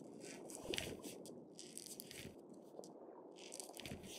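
A Blanding's turtle's claws scratching and clicking on a hard floor as it walks, in an irregular rattle, louder just under a second in.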